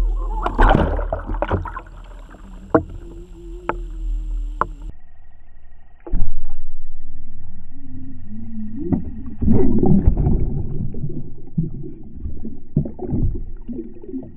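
Muffled underwater sound from a camera moving with a lure rig while a pike strikes: low water rush and rumble with sharp knocks and thumps, under a faint wavering hum. The background changes abruptly about five seconds in, and a hard thump about six seconds in slowly dies away.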